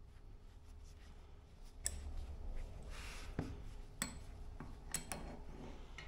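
A wrench working the set screw on a garage door torsion spring's winding cone, loosening it: a few sharp metal clicks with some scraping between them, starting about two seconds in.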